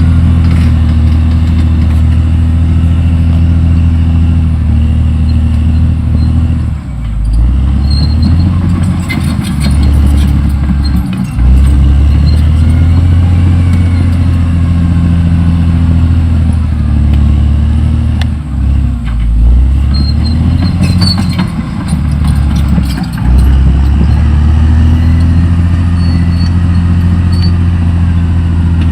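Caterpillar D6R XL bulldozer's diesel engine running steadily under load. Its note dips and picks up again several times as the load on the blade changes.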